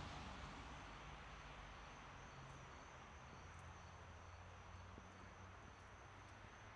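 Faint, steady, high-pitched insect trill with a low rumble underneath that fades away.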